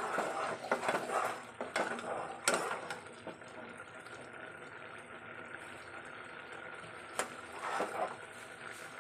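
Metal spatula scraping and knocking against a metal pot while stirring vermicelli kheer. The strokes come in a cluster over the first three seconds and again around seven to eight seconds in, over a steady background hiss.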